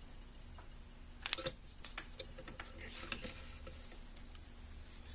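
Light clicks and taps from the parts of a new gear shift cable being handled and slid together, in small clusters about a second in and again around three seconds.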